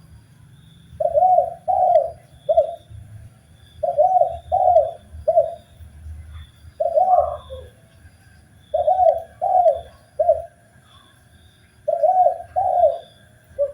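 Spotted dove (tekukur) cooing: five phrases of three coos each, two fuller notes and a shorter third, repeated about every three seconds. A few faint high chirps sound between the phrases.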